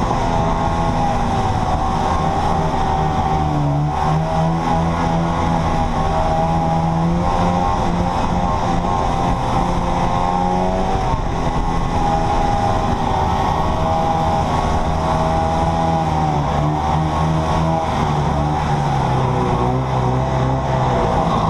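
Vintage Mercury Hurricane Mark II snowmobile's two-stroke engine running under way, its pitch rising and falling with the throttle.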